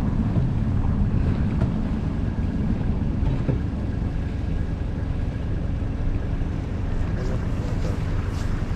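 Strong snowstorm wind buffeting the microphone in a steady, fluttering low rumble, with faint city traffic underneath.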